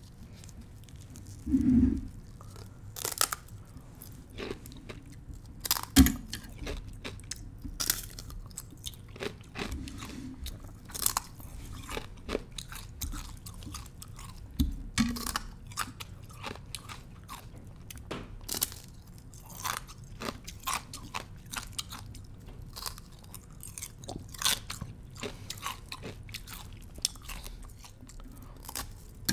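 A thin slab of ice being bitten and chewed: an irregular string of sharp, crisp cracks and crunches, with a few much louder bites, the loudest about six seconds in.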